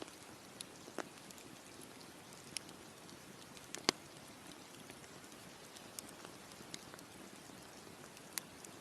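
Campfire crackling: irregular sharp pops and snaps over a faint, steady hiss, with the strongest pops about a second in and just before four seconds in.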